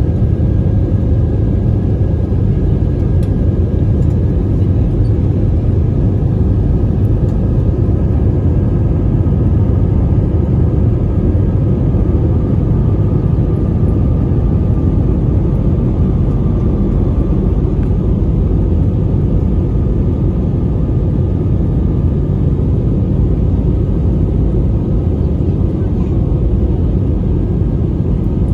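Steady cabin noise of an Airbus A320-family airliner in its climb after take-off: a loud, even low rumble of the engines and rushing air.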